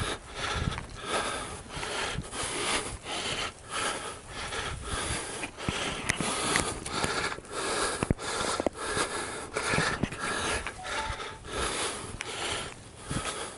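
Footsteps, clothing rustle and breathing of a person walking briskly across a grassy field with the camera on them, a rough swish about twice a second in step with the walking.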